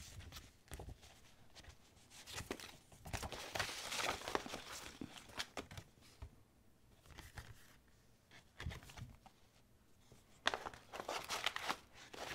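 Paper stickers and sticker sheets being shuffled and handled, rustling and crinkling in irregular bursts, with a quieter pause in the middle.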